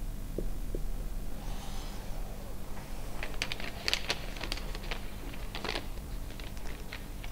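Sheet of paper being handled, rustling and crinkling in a run of short, irregular crackles from about three seconds in. Near the start, two faint brief squeaks of a marker on a whiteboard.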